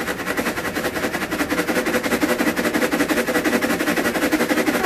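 HQ Enzywash mini washing machine on its spin cycle: a steady motor hum under a rapid, even rattle that grows louder.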